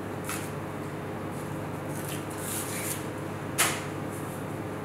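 Kitchen handling sounds on a countertop: faint scrapes and light clicks, then one sharp knock about three and a half seconds in, over a steady low hum.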